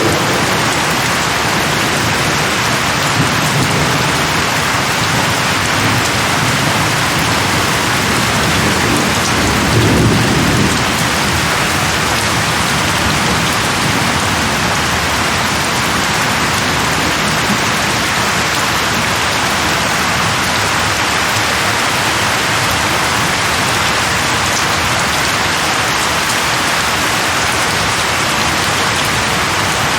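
Steady rain falling, with a low rumble of thunder lasting a few seconds about ten seconds in.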